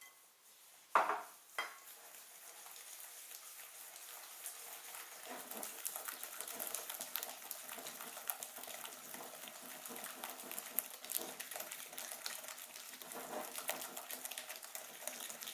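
Sugar and egg being beaten together in a bowl: a utensil scraping and clicking quickly and steadily against the bowl, after two sharp knocks about a second in.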